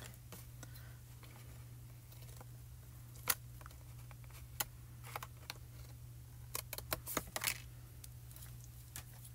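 Scissors snipping card stock: a few separate sharp snips, then a quick run of them about two-thirds of the way through, over a faint low hum.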